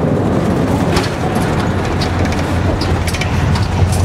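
Steady low rumble of road and engine noise inside a moving vehicle's cabin, with a few faint ticks and rattles.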